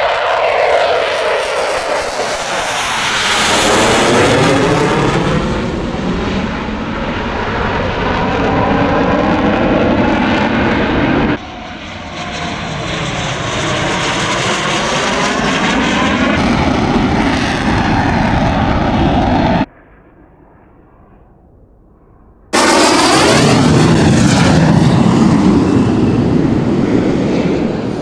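Eurofighter Typhoon jet engines at high power: loud jet noise swelling and fading as the fighter passes close by. It comes in three stretches, with a sudden cut about eleven seconds in and a quieter gap of about three seconds two-thirds of the way through.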